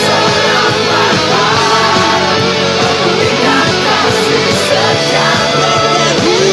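Lead guitar playing a worship-song melody over a full band backing track, with bent, gliding notes.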